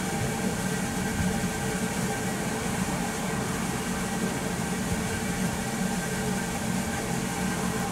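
Steady hum and whir of a parked Kintetsu 80000 series 'Hinotori' electric train's onboard equipment running at standstill: an even hiss with several steady tones over a low hum.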